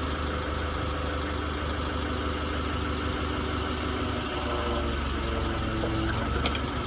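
Forklift engine idling steadily, with one sharp metallic click near the end.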